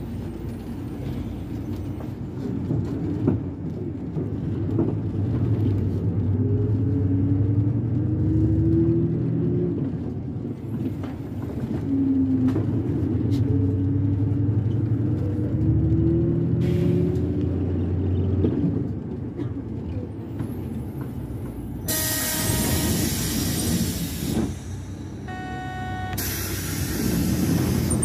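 City bus engine running, heard from inside the bus, its pitch rising twice as the bus pulls away and speeds up. Near the end come two loud bursts of hissing released air from the bus's air brakes or pneumatics.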